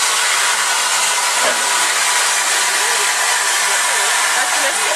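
Small steam tank locomotive standing still and blowing off steam: a loud, steady hiss.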